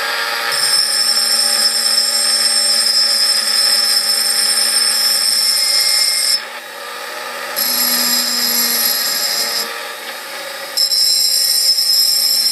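Small Xtreme Challenge rotary drill with a fine bit engraving a glass wine bottle: a steady motor whine, with a louder, high grinding whine in three long stretches and two short quieter dips between them.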